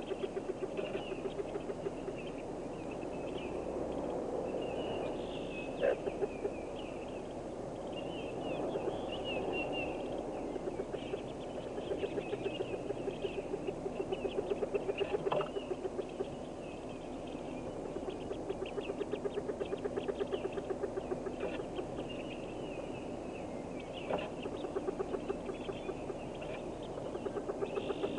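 Hooded merganser ducklings peeping inside a nest box, high chirps in quick runs throughout, over a steady low rapid pulsing. A few sharp knocks come at about six, fifteen and twenty-four seconds in.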